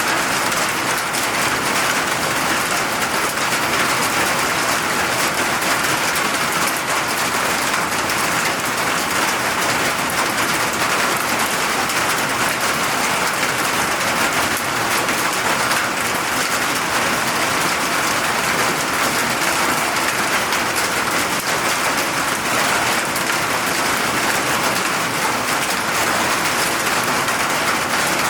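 Steady rain falling and pattering on surfaces, an even hiss with no breaks.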